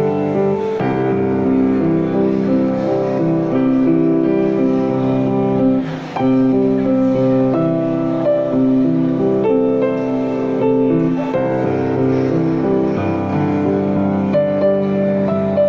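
Instrumental music with held notes and chords that change slowly, and a brief drop in loudness about six seconds in.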